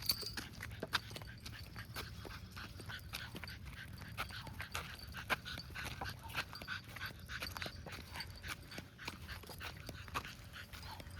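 A chihuahua making small whimpering and panting sounds, over many short irregular clicks.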